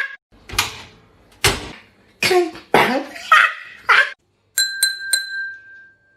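Mouth-made sound effects: a quick run of six short pops and vocal noises. Then comes a bell-like ding of three fast strikes, whose tone rings on for about a second and a half.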